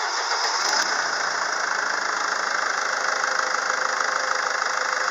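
SsangYong Kyron 2.0 four-cylinder turbodiesel idling steadily, with a fast, even diesel ticking over the engine note.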